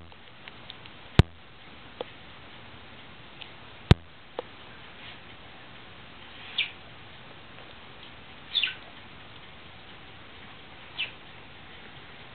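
A dog nosing and scrabbling at a pig's ear against a cardboard box: two sharp knocks about three seconds apart with a few lighter clicks, then three short high squeaks spread over the last half.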